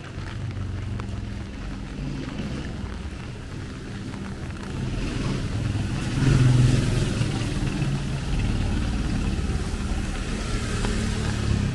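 Motor vehicle engine running, with a steady low rumble that swells to its loudest about six seconds in, then eases off a little.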